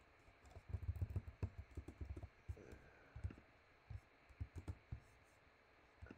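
Typing on a computer keyboard: a quick run of keystrokes about a second in, then a few scattered single key presses.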